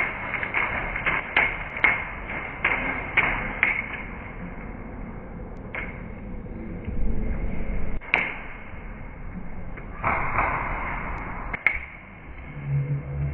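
Airsoft guns firing in rapid single shots, about two or three a second for the first few seconds, then only a few scattered shots.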